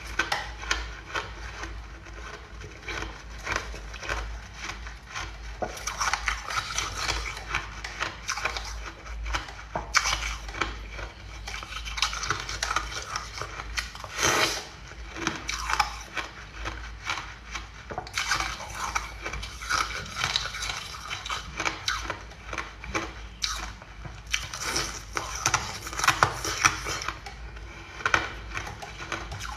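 Ice being bitten and chewed close to the mouth: a dense run of crackling, crunching snaps, with sharper, louder bites every few seconds.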